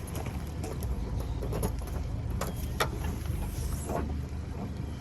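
A few light knocks and scrapes as a battery box is set into a car's trunk to test the fit, over a steady low rumble.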